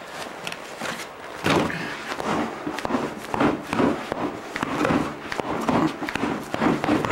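Boxing gloves punching a training dummy: a run of thuds, roughly two a second and unevenly spaced, starting about a second and a half in.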